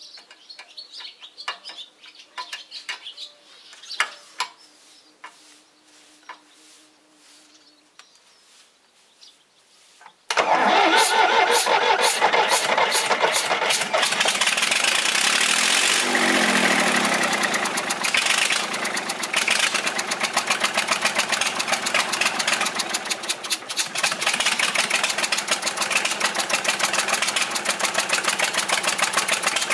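Light metallic clinks of a wrench on the injector fittings of a Perkins diesel. About ten seconds in, the engine catches abruptly and keeps running with a fast clatter on its first start after a rebuild. Gas is blowing out past one of the injectors, which the mechanic takes for a poorly sealed injector.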